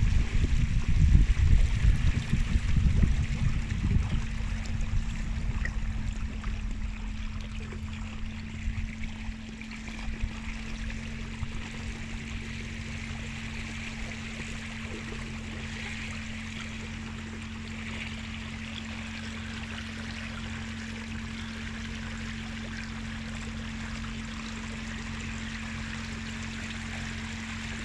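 Water rushing and trickling along the hull of an inflatable boat under way, over the steady hum of an electric trolling motor running hard at about 1000 watts. The water noise is louder and choppier for the first few seconds, then settles to an even rush.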